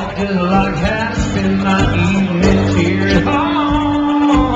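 Live acoustic performance: a man singing with two acoustic guitars strumming, with one long held note in the second half.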